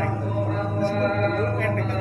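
Melodic chanting with long, gently wavering held notes over a steady low hum.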